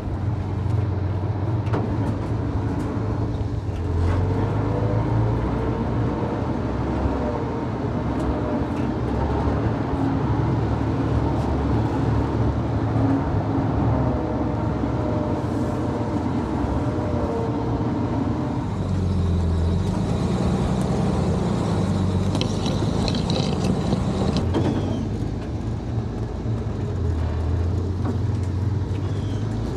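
Dodge M37 truck's flathead inline-six engine running as the truck crawls along, its note rising and falling with the throttle.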